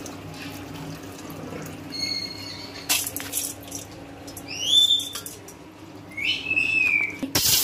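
Soaked rice being swished and rinsed by hand in water in an aluminium bowl, with small splashes. A few short whistled calls that glide in pitch sound over it, the loudest about halfway through. Near the end a tap comes on and water runs.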